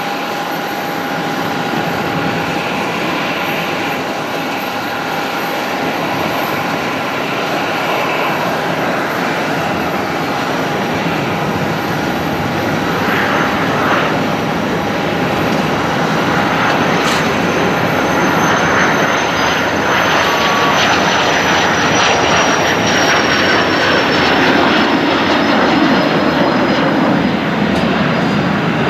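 Twin Williams FJ44 turbofan engines of a Cessna Citation CJ1 at takeoff power through the takeoff roll and climb-out: a steady jet rush, growing gradually louder, with a high whine that slowly falls in pitch in the second half.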